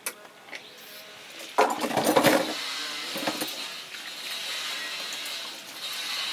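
Objects knocking and clinking as they are handled, with a louder clatter about two seconds in, followed by a steady hiss.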